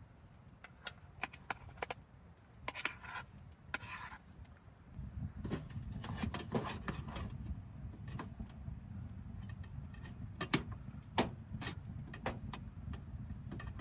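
Scattered sharp clicks and knocks with brief rustling. A steady low rumble comes in about five seconds in.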